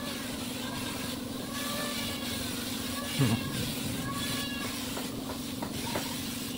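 Air-fed spray gun misting finish onto a wooden table, with the steady hum and hiss of the compressed-air supply. A single thump about three seconds in.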